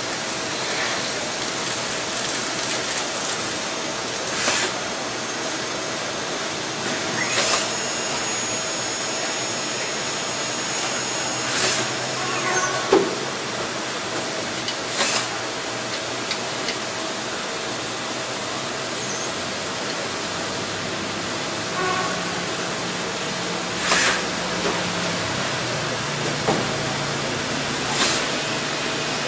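Hardinge T42 CNC lathe running: a steady hiss with a steady mid-pitched tone under it, a high whine for about five seconds starting around a quarter of the way in, and half a dozen sharp clicks spread through.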